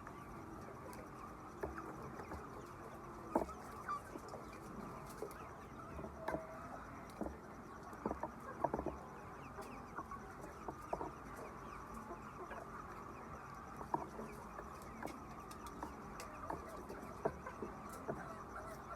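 Flock of chickens clucking over a steady background noise, with short sharp taps and brief calls scattered throughout.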